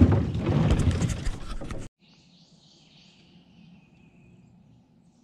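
Loud close-up rustling and crackling on the microphone for about two seconds, cutting off abruptly. Then faint bird chirps over a low steady hum.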